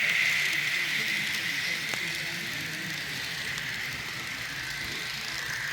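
Kato N-scale model diesel train running on the layout track: a steady high whirring rattle of motor and wheels, loudest at first and easing off over the first couple of seconds, with a single click about two seconds in.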